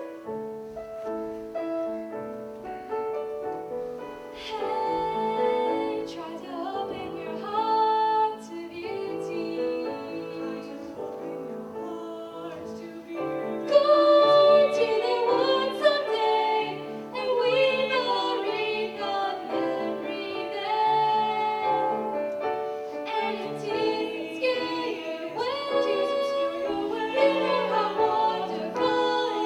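Vocal ensemble singing in several-part harmony, female voices on top over a low sung bass line. The singing grows louder about thirteen seconds in.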